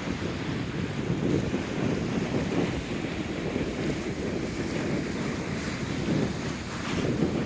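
Strong, gusty wind buffeting the microphone as a low rumble, over the rush of wind-driven waves on a rough lake.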